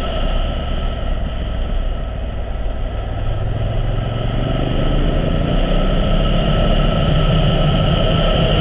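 2017 Honda Africa Twin's parallel-twin engine running on the move, its revs rising steadily from about three seconds in as the bike accelerates.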